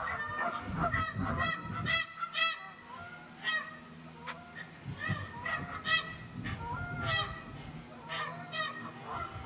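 A flock of Canada geese honking, many short calls overlapping, with a brief lull around the middle.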